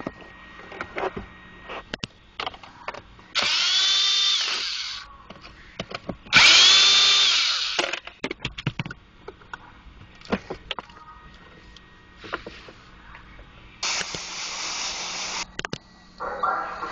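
A cordless screwdriver whirs in two short runs of about a second and a half each, the second louder and dropping in pitch as it winds down. Between them come small plastic clicks and rattles of handling, and near the end a second-and-a-half rush of scraping noise.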